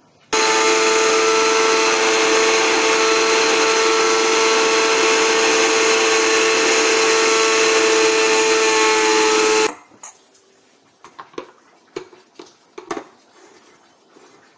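Electric kitchen mixer grinder running at full speed: a loud, steady motor whine that starts abruptly and cuts off suddenly after about nine seconds. A few faint clicks and taps follow.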